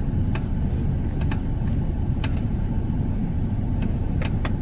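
Toyota Alphard door knocking, a short 'tok tok' that comes as irregular single and double knocks over the steady road rumble in the cabin. The mechanic puts it down to a misadjusted door gap, with the door able to shift in its opening.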